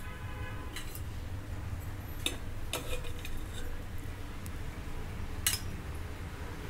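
Steel ladle clinking against the metal pot and the serving bowl while fish curry is ladled out: a few short, scattered clinks.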